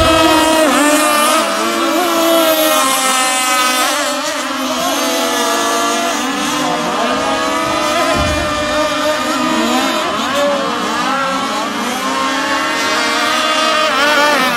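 Several two-stroke petrol engines of racing RC model boats running at high revs together, their pitches rising and falling as the boats race.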